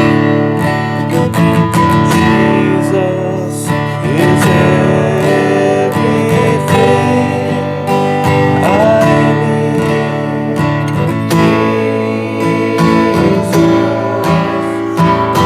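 Music led by a strummed acoustic guitar, playing continuously.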